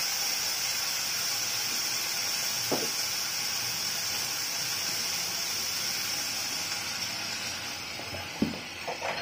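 Vegetables frying in oil in a stainless steel pan on a gas burner, a steady sizzling hiss that thins out near the end. A few light knocks stand out, the sharpest near the end.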